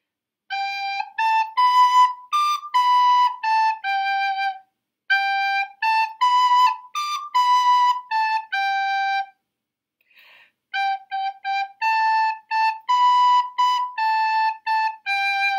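Soprano recorder playing a simple tune in short, separately tongued notes on B, A, G and high D. It plays in three phrases with two short pauses between them.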